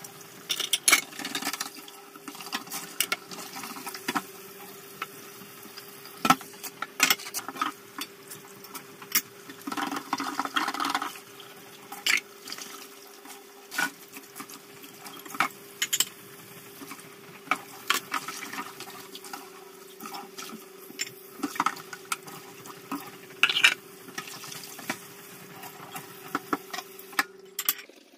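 Kitchen tap running into a stainless-steel sink during hand dishwashing, with frequent clinks and knocks of plates and bowls against the sink and a steady hum under the water. The running water and hum stop near the end.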